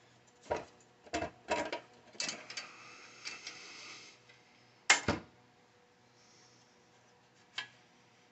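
A series of sharp mechanical clicks and knocks, like small hard parts being handled, with a rattling scrape about two seconds in, the loudest knock about five seconds in and a last click near the end.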